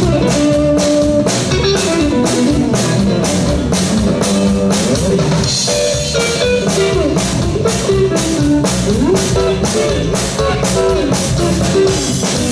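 Band playing an instrumental break: a guitar lead with bending, sliding notes over a steady drum-kit beat, with no vocals.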